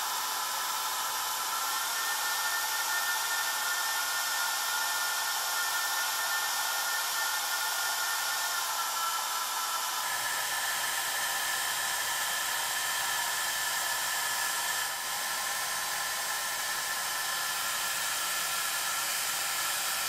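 SALONIA Smooth Shine hair dryer running: a steady rush of air with a thin motor whine. The whine shifts slightly twice in the first half, and the sound changes about ten seconds in.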